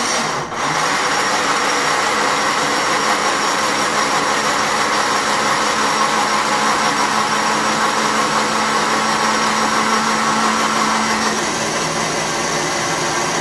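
Countertop blender motor running steadily, churning a thick, chunky mix of food and soda, with a brief dip about half a second in.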